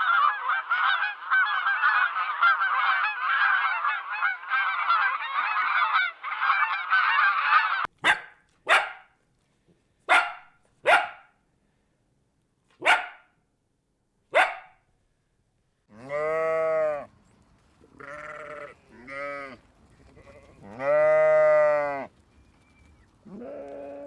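A run of animal calls: about eight seconds of dense chattering, then a string of short sharp calls, then several long calls that rise and fall in pitch.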